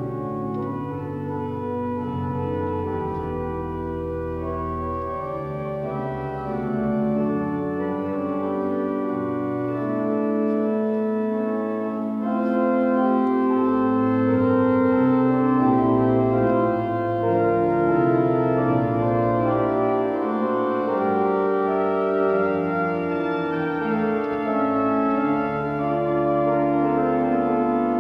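Hill pipe organ playing slow sustained chords, with a deep pedal bass that drops out and returns; it grows somewhat louder about halfway through.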